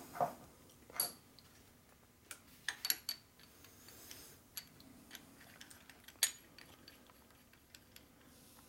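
Scattered light metallic clicks and clinks from an aluminium caliper bracket and a threaded steel stud being handled on steel parallel blocks on a milling machine table. The sharpest clinks come about a second in and again past six seconds.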